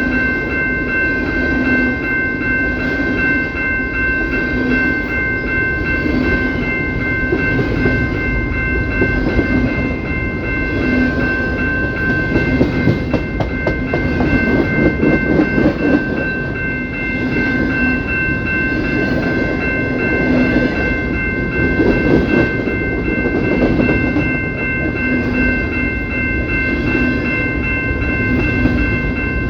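CPKC train cars rolling past with a continuous rumble and a soft clicking that repeats every second or two over the rail joints, while several steady high-pitched tones sound without a break.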